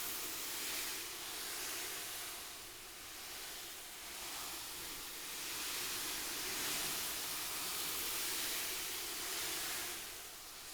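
Coarse sand shifting back and forth in a box, a hiss that slowly swells and fades several times: a foley imitation of ocean waves washing on a shore.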